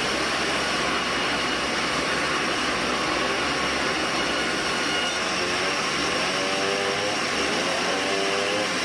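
Sawmill band saw running, a steady loud whirring noise without a break.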